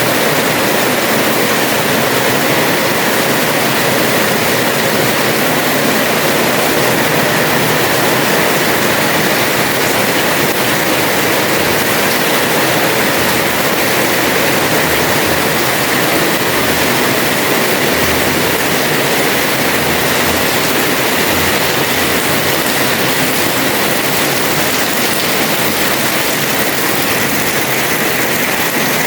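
Heavy rain pouring down steadily on a house terrace, a dense, unbroken hiss of falling water.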